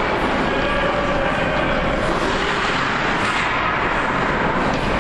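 Steady din of spectators in an ice hockey arena, a mass of voices with no single word standing out.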